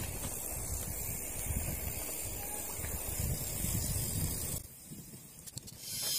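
Wind buffeting the microphone on a moving bicycle, a rough low rumble with a high hiss over it. It drops away abruptly about four and a half seconds in, then swells again near the end.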